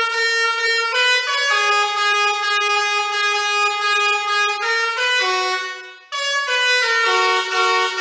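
Basuri 5.0 six-trumpet musical air horn playing a tune in loud, held notes that step up and down in pitch. About six seconds in the tune fades to a brief gap, then starts again.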